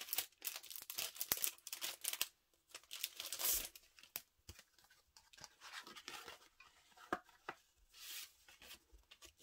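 A paper envelope being torn open and handled: irregular paper tearing and crackling with small clicks, and two longer rustles, one a few seconds in and one near the end.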